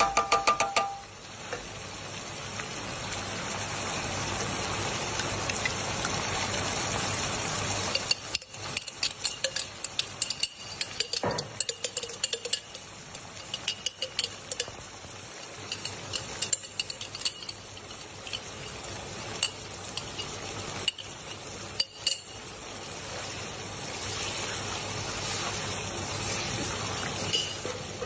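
Tomato-chilli sauce sizzling in a wok, with a wooden spatula stirring and knocking against the pan in a run of clicks from about eight seconds in, then steady sizzling again near the end.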